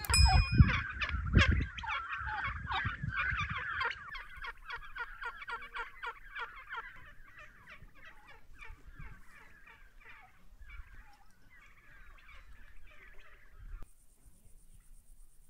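Flock of chickens clucking and squawking, a dense chatter of short calls that is busiest at first and thins out, stopping suddenly near the end. A loud low rumble sits under the calls in the first few seconds.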